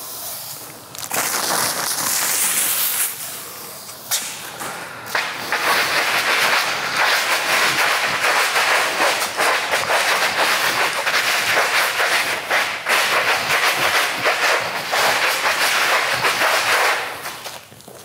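Rough scraping of a hard object across the surface of a vinyl plank in a scratch test. There is a short bout in the first few seconds, then a long sustained stretch from about five seconds in that stops near the end.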